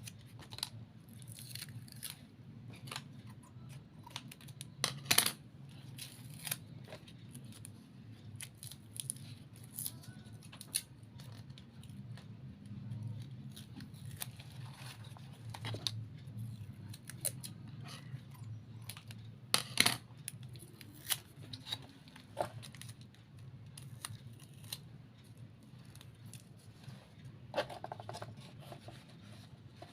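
Scissors snipping, with irregular handling clicks and rustles over a low steady hum.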